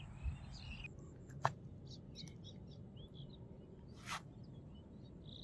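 Faint short bird chirps scattered through a quiet outdoor background, with a sharp click about a second and a half in and a brief hiss-like burst near four seconds.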